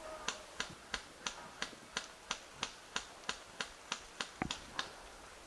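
Custom airsoft M4 rifle firing single shots in quick succession, about three a second, some fifteen shots in all, stopping near the end.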